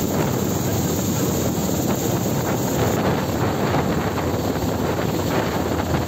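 Rescue helicopter hovering low overhead during a stretcher hoist: a loud, steady rotor and engine noise, with the rotor downwash buffeting the microphone.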